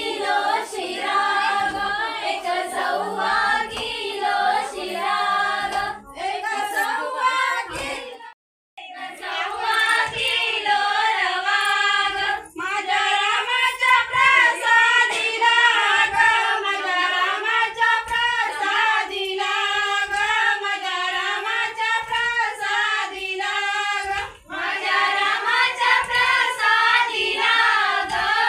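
Women and girls singing a traditional folk song together in unison, unaccompanied, for the circle dance. The singing breaks off completely for a moment about eight seconds in.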